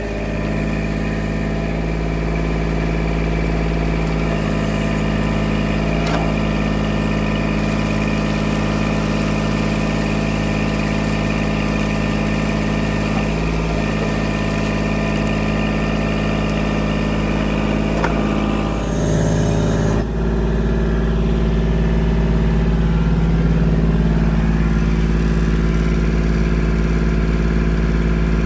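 Kubota compact tractor's diesel engine running steadily while its backhoe works, breaking and lifting pond ice, with a few faint knocks of ice. The engine sound shifts abruptly about twenty seconds in.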